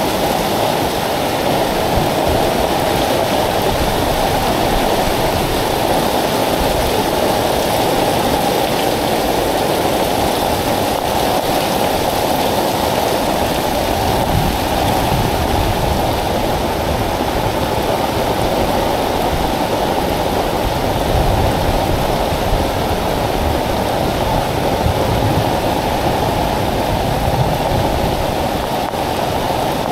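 Very heavy tropical rain pouring steadily onto a flooded street and drumming on an umbrella overhead, a constant loud rush.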